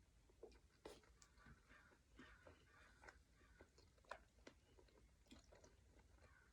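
Faint close-up chewing of a vermicelli noodle salad: soft, irregular mouth clicks and smacks, several a second.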